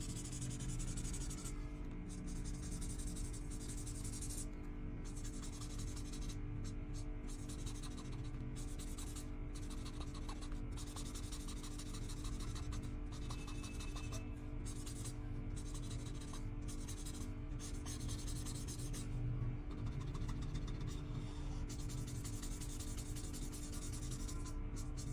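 Acrylic paint marker scratching across paper in quick repeated colouring strokes, broken by brief pauses as the tip lifts, over steady background music.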